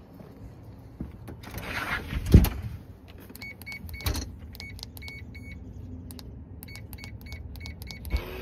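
Keys clicking and jingling at a front-door deadbolt lock, with one loud thump about two and a half seconds in and a run of short high pips through the middle.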